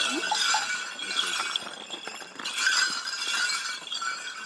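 Many small bells on a horse's Chagu Chagu Umakko festival harness jingling in swells as the decorated harness is shaken and adjusted.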